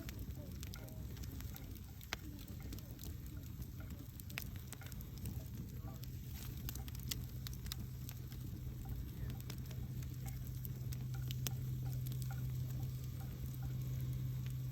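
Wood campfire crackling, with irregular sharp pops and snaps scattered through it over a low, steady rumble.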